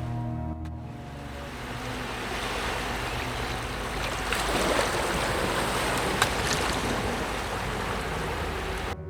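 Waves breaking on a beach: a steady rush of surf that swells about halfway through and cuts off abruptly near the end.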